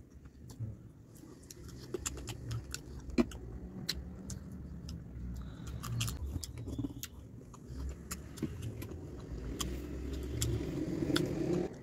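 Small clicks and scrapes of fingers picking food off a plate, with a metal bracelet jangling, over a low steady rumble that grows louder near the end.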